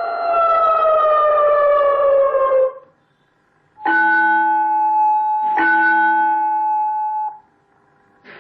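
Electronic siren tone from an automatic school bell system's horn speaker, falling in pitch and stopping about three seconds in. After a short gap comes a bell-like tone, struck twice and held steady, which cuts off sharply.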